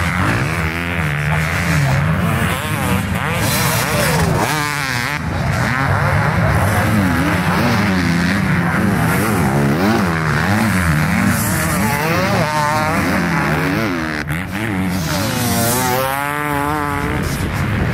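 Several 450cc motocross bikes racing past, their engines revving up and down through the gears in overlapping rising and falling pitches.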